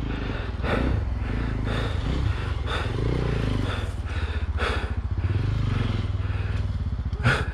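Dirt bike engine running at low revs through a technical trail section, its pitch rising and falling as the throttle is worked.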